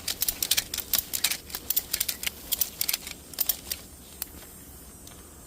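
Ratchet strap being cranked tight, its ratchet clicking rapidly in quick runs. The clicking stops a little before four seconds in, leaving one last click.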